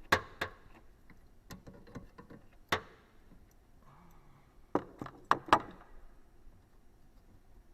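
Sharp clicks and knocks of tools and parts being handled. One loud knock comes at the start, another about a third of the way in, and a quick cluster of three a little past the middle, with fainter ticks between them.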